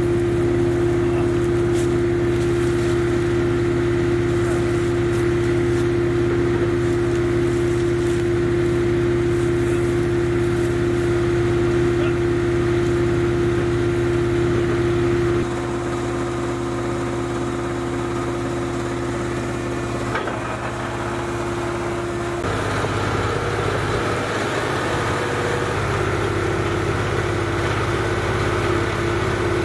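Skid steer loader's engine running steadily at a constant pitch. Its tone and loudness shift abruptly about halfway through and again about two-thirds of the way through.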